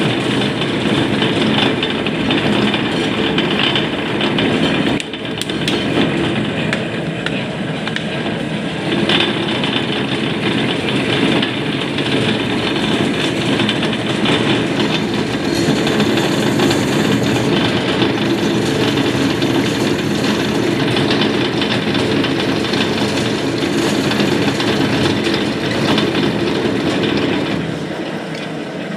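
Lathe running under power while the cutting tool turns a workpiece down to diameter: a steady, loud mechanical running noise with a rattle. It dips briefly about five seconds in and quietens near the end.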